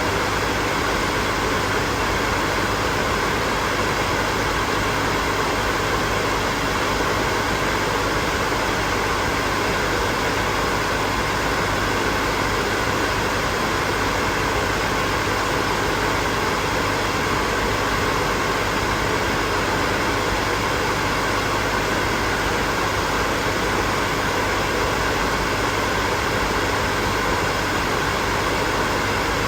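Hair dryer running steadily: a continuous, unchanging blowing noise with a faint steady motor hum.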